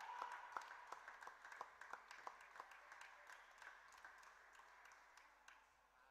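Faint, scattered hand clapping from a few people after a point in a table tennis match, thinning out and fading over a few seconds.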